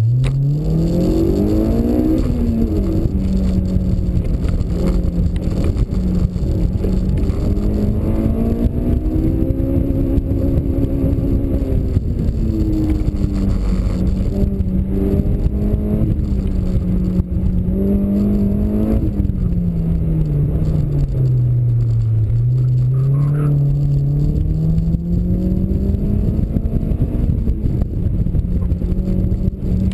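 Honda S2000's four-cylinder engine, breathing through a T1R aftermarket exhaust, pulling hard through an autocross run. The revs climb steeply over the first two seconds, then rise and fall as the car is driven between corners, with the deepest drop about 22 seconds in.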